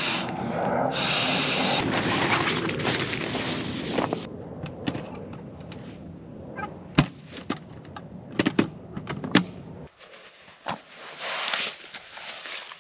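Camping gear being handled and set up: rustling for the first few seconds, then a string of sharp knocks and clicks.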